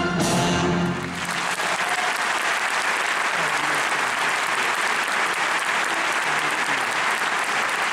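A big band with orchestra ends on a held chord about a second in, then the audience applauds.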